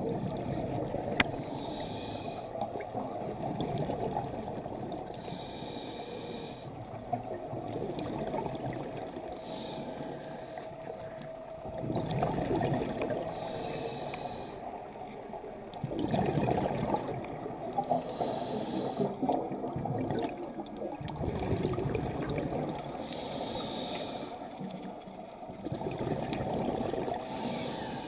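Scuba regulator breathing, recorded underwater: a short hissing inhale about every four to five seconds, alternating with longer gurgling surges of exhaled bubbles.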